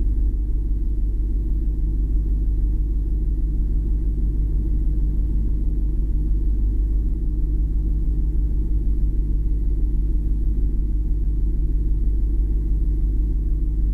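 Steady low rumble of a 2018 BMW 750i (G11) driving, heard from inside its trunk.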